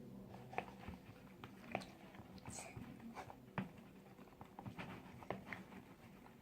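Faint, scattered short clicks and taps, a few seconds apart.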